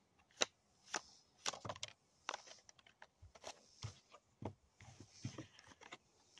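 Tarot cards being shuffled and thumbed through by hand: a run of sharp, irregular card snaps and flicks, the loudest near the start.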